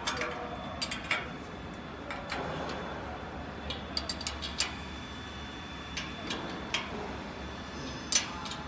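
Scattered metallic clicks and clinks of tools and metal parts being handled while fitting the chain and fixed blocks between a laminating machine and its feeder, over a steady low hum. The sharpest is a double click near the end.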